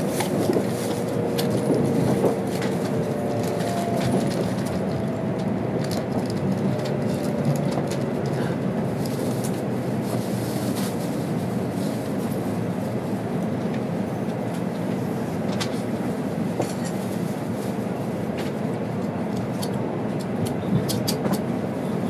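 Cabin noise inside an N700 Series Shinkansen car rolling slowly into its terminal platform: a steady rumble of wheels on rail with scattered clicks over the points. A faint squeal sounds through the first several seconds.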